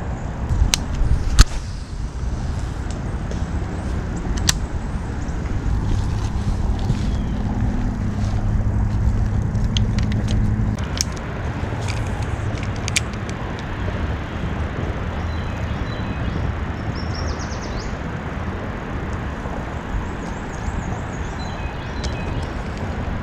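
A few sharp clicks from a spinning reel being handled during a cast, the loudest about a second and a half in, over a steady low rumble.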